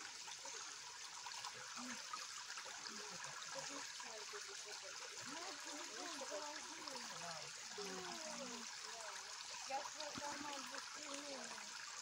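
Shallow stream running over stones: a steady hiss and trickle of water.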